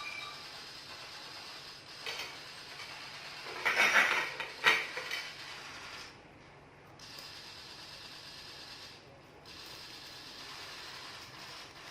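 Fish grilling over an open fire, sizzling and crackling steadily, with a burst of louder sharp cracks about four seconds in.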